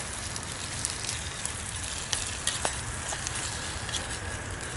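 Stir-fried vegetables sizzling steadily in a pan on a small wood-burning stove, with a few sharp clicks scattered through.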